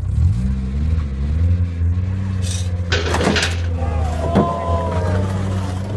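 A motor vehicle engine picks up in pitch at the start and then runs steadily. A few sharp knocks come around the middle, followed by a higher tone that glides slightly downward.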